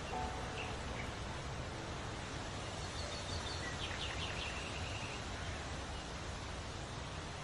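Steady background hiss with a few faint budgerigar chirps clustered about three to four seconds in.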